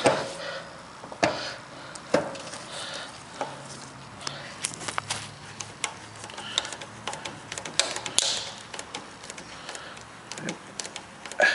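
Grease gun being worked on a lawn tractor's front axle grease fitting: irregular clicks and knocks, with a few sharper ones early and many small ticks later.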